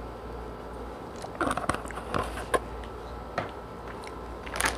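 Drinking water from a plastic bottle: a few soft gulps and mouth clicks picked up close by a clip-on microphone, then a short louder rustle near the end.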